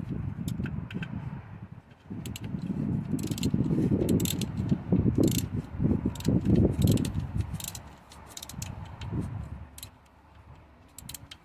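Ratchet wrench clicking in short, uneven strokes as the power steering pump's mounting bolt is snugged down, with metal clinks and handling knocks; the tool work thins out near the end.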